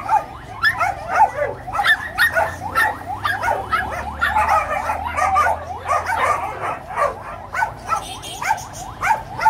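Several caged dogs barking and yipping, short high-pitched barks coming several a second and overlapping, thickest in the middle.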